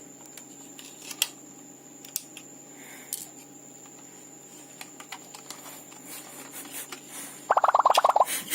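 Handling of a plastic VR box headset: scattered light clicks and taps, then a brief rapid rattle near the end.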